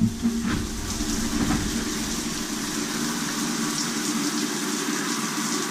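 Shower water running steadily, spraying and splashing onto a tiled floor in a small tiled shower stall.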